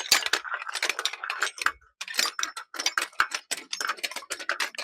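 Rapid, uneven metallic ticking of a bicycle freewheel ratchet, the sound a cycle makes while coasting without pedalling, with a short break about two seconds in.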